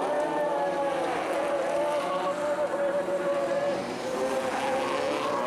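Several rear-wheel-drive folkrace cars' engines running hard on a gravel track, their overlapping engine notes rising and falling as the drivers rev through the bend.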